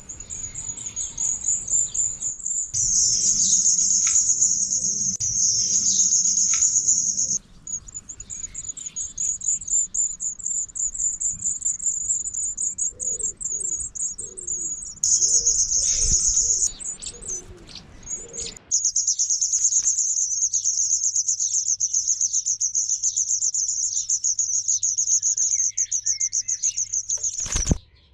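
Wagtail nestlings begging: a continuous high-pitched, rapidly pulsing cheeping that breaks off and resumes abruptly several times.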